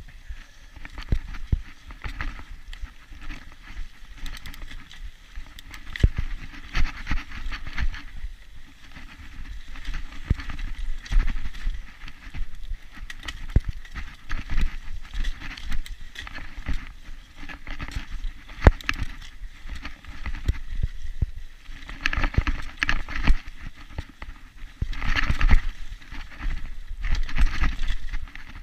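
Mountain bike rolling along a dirt trail, with irregular clicks, knocks and rattles as it goes over bumps, and louder rattly stretches near the end.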